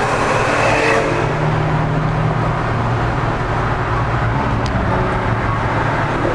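2008 Corvette C6 Z06's 7.0-litre LS7 V8 running steadily at cruising speed, with tyre and road noise, heard from inside the car.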